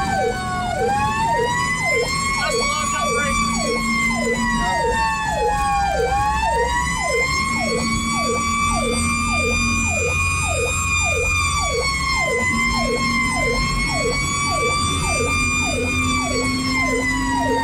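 Fire engine sirens heard from inside the cab on the move. A wail rises and falls slowly, layered with a faster siren tone that sweeps down two to three times a second, over a low engine rumble. A low horn tone sounds in several long blasts of about two seconds.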